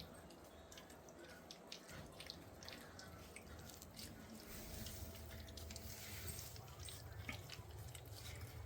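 Young puppies lapping and smacking at soft, blended puppy food: faint, scattered wet clicks.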